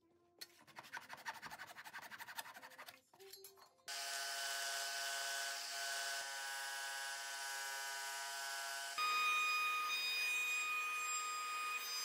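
Woodworking tools on hardwood. For the first few seconds there are rapid scraping strokes of a saw or rasp on wood. From about four seconds in a power tool's motor runs with a steady whine, which switches to a louder, higher whine a few seconds later as a router runs in a router table.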